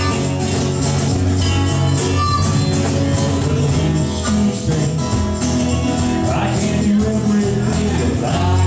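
Live acoustic band playing: strummed acoustic guitars and electric bass with a harmonica played into a mic, over a steady jingling hand percussion.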